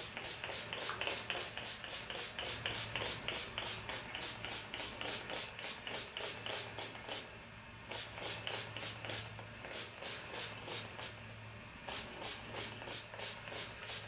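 Small spray bottle misting water onto hair in rapid pumped squirts, about four to five a second, in three runs with short pauses about seven and a half and eleven seconds in.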